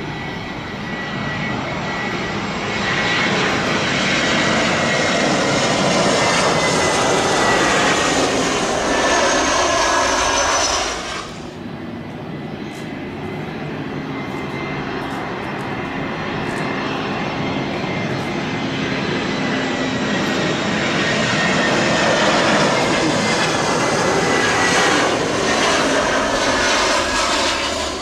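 Airbus A320-200 jet airliners on final approach passing close overhead: engine whine and rushing noise that builds, the whine sliding slowly down in pitch. It cuts off abruptly about eleven seconds in, then a second A320's approach builds up the same way.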